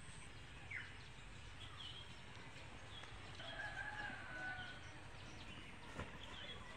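Faint outdoor ambience with small birds chirping and a chicken calling once in the middle, held for about a second. There are two light knocks, one near the start and one about six seconds in.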